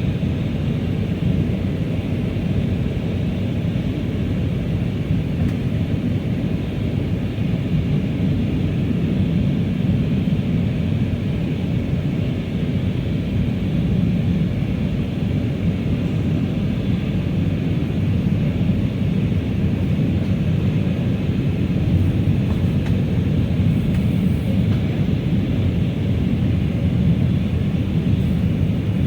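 Steady drone of an Airbus A319's engines and rushing airflow heard inside the passenger cabin during the descent, a low, even rumble with a fainter hiss above it.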